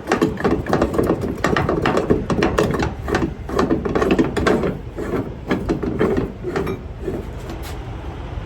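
A ratchet tightening a cargo strap on a flatbed load: the pawl clicks rapidly and unevenly over the ratchet teeth, with knocks of metal on metal, dying down after about seven seconds.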